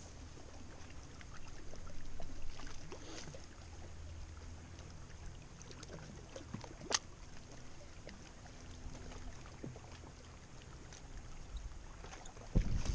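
Small waves lapping against the rocky shore, with scattered small clicks from a spinning reel being handled and one sharp click about seven seconds in. Near the end, wind starts buffeting the microphone with a loud low rumble.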